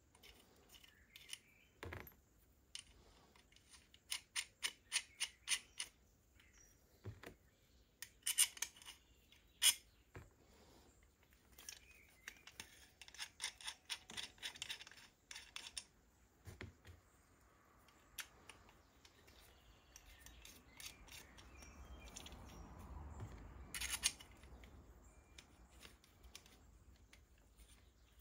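Light metallic clicking and ticking from a hand rivet-nut pliers as its threaded mandrel and nosepiece are changed and screwed in by hand. The clicks come in quick runs, with one sharper click near the end.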